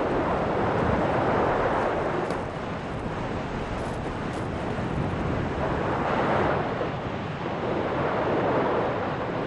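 Sea waves washing onto a beach, the noise swelling and easing about three times.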